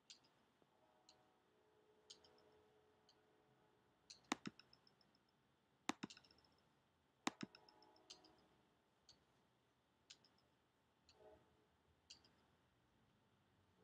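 Scattered sharp clicks of a computer mouse button, most faint, with a few louder ones in quick pairs between about four and seven seconds in, against near silence.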